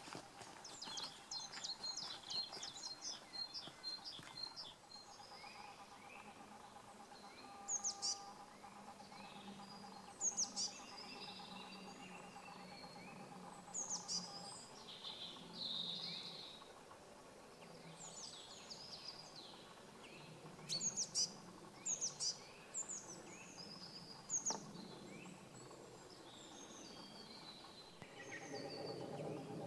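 Wild songbirds singing and calling in open countryside: short, high chirps and trills scattered throughout, with a quick series of high notes in the first few seconds. A faint steady hum runs beneath them for several seconds in the middle.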